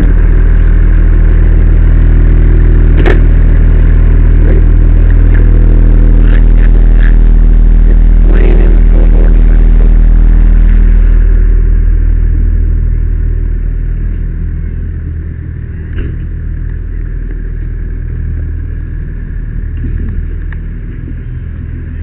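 Fire engine running steadily close by, a loud low rumble, with a couple of sharp knocks of gear being handled. The engine grows quieter about halfway through and stays in the background after.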